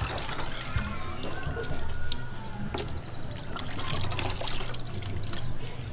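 Water trickling and dripping into a plastic bucket as a handful of wet leaves is squeezed and wrung out by hand.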